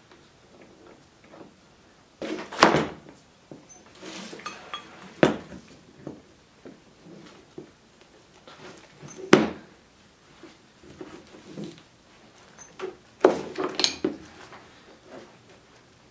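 Wrenches and steel hydraulic hose fittings clanking and clinking on a wooden workbench while a fitting is tightened onto a hydraulic hose. Four loud, sharp clanks a few seconds apart, with lighter clicks and scrapes between them.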